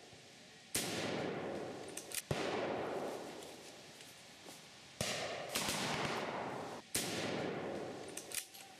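Rifle shots fired one after another at irregular intervals, about six in all. Each one is sharp and rings out in a long echo that fades over a second or two.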